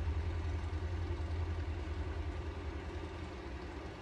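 Steady low rumble of background noise, easing slightly toward the end.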